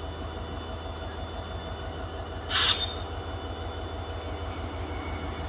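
Diesel locomotive of a container freight train running at a distance, a steady low pulsing rumble. About two and a half seconds in comes a short, sharp burst of air hiss, typical of the locomotive's air brakes venting.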